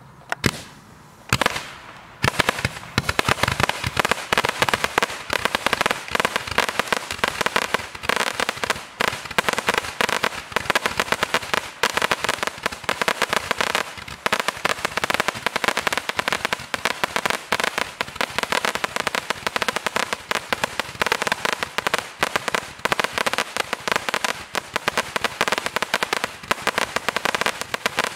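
672-shot firework candle barrage firing: a couple of single shots, then from about two seconds in a rapid, unbroken stream of launch pops and small bursts.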